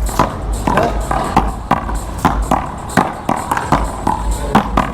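One-wall paddleball rally: a quick, irregular run of sharp pops as the rubber ball is struck by wooden paddles and bounces off the wall and the court, two to three hits a second.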